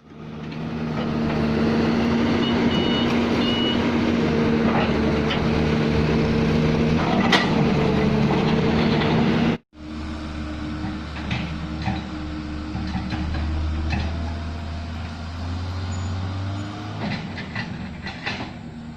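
Heavy diesel machinery, an excavator and dump truck, running steadily under load, with a sharp knock about seven seconds in. It breaks off abruptly partway through and resumes quieter, with a few scattered knocks.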